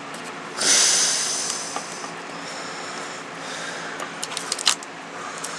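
Handling noise as a laptop keyboard and its ribbon cable are worked free of the case: a sudden rustling scrape about half a second in that fades over a second or so, then a few small plastic clicks near the end.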